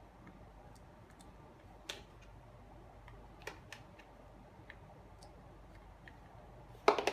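Scattered light clicks and taps of plastic brush parts being handled while bristle strips are fitted into a water-fed window-cleaning brush, with a louder cluster of clicks near the end.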